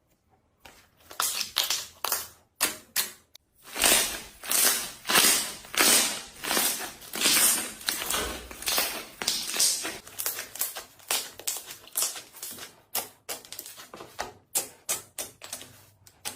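Slime being squeezed and poked by hand, making rapid runs of wet crackles and pops. They start about a second in and are densest in the middle.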